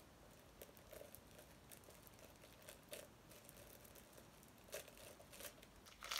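Faint rustling and crinkling of paper and plastic packaging handled and torn open by hand, as scattered soft crackles that grow a little louder near the end.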